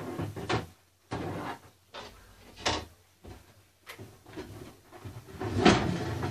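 Someone rummaging through things on the floor: irregular knocks, clatters and rustling as objects are shifted about in a search for a plug, with a busier, louder spell near the end.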